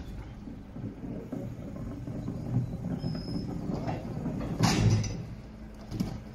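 Engine of a truck-mounted boom lift running steadily, with a few sharp knocks and one louder thud a little past the middle.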